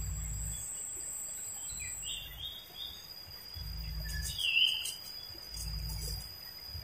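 A bird chirping a few short notes, the loudest about four and a half seconds in, over a steady high-pitched hum of insects, with low rumbles coming and going.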